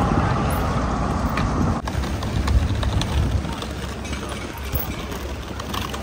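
Wind buffeting the microphone, with footsteps clicking on pavement from about two seconds in.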